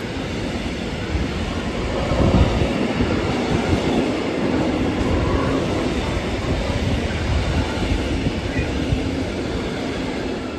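Freight train of intermodal wagons loaded with containers and semitrailers rolling past close by: a steady rumble of wheels on the rails with a rapid clatter of short knocks, easing off slightly near the end.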